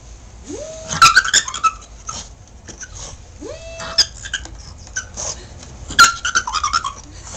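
A pug barking and yelping at a vacuum cleaner that is switched off. Two loud, rough bursts of high, strained yelps come about a second in and about six seconds in, with short rising whines and smaller yips between; the sound is likened to a howler monkey.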